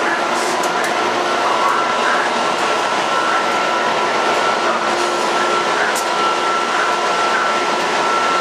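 Train noise at the station: a steady, even rush of sound with a thin high whine held throughout and a few faint clicks.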